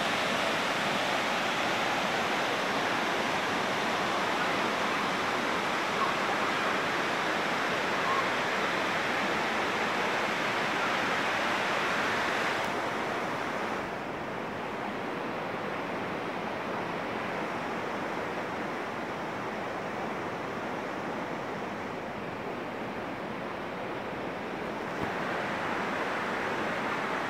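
Waterfall water rushing down rock cascades into a pool, a steady even rush with no distinct events. About halfway it turns quieter and duller, and it grows brighter again near the end.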